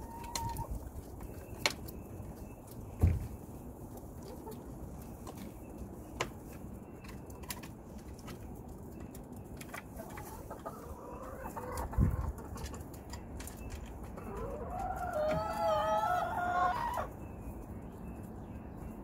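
Chickens clucking in their run, with one long wavering call of two to three seconds about fifteen seconds in. A few sharp knocks sound along the way.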